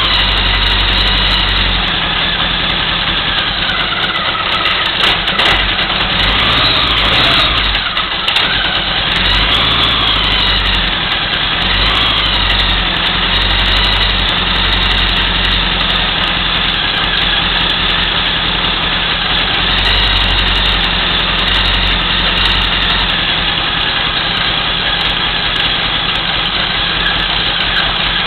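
1975 Honda GL1000 Gold Wing's flat-four engine running at a fast idle, its speed rising and falling a little in the first ten seconds or so, then holding steady. It is running on freshly replaced timing belts after being a non-runner.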